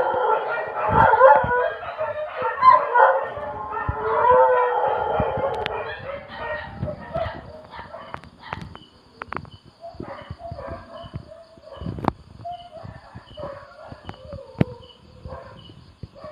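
Several dogs howling together in long overlapping wails, loud at first, thinning out about six seconds in to fainter, scattered howls. Sharp clicks come now and then in the second half.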